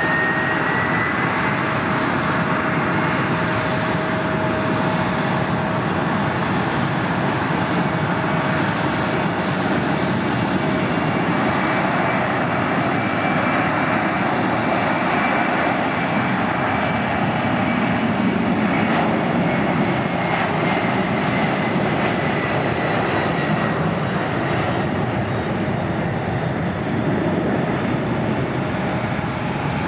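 A Boeing 767-300ER freighter's twin jet engines at takeoff power during the takeoff roll: a loud, steady rush with high whining tones, one whine rising in pitch over the first couple of seconds.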